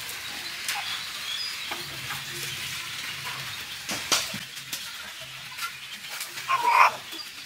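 Scraping and rustling with a few sharp knocks as bamboo strips are wedged across the mouth of a jar of salted fish to press it down, with a brief squeak near the end.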